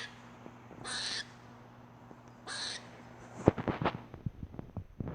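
Squirrel giving two short, rasping calls about a second and a half apart. A quick run of sharp clicks and knocks follows, louder than the calls.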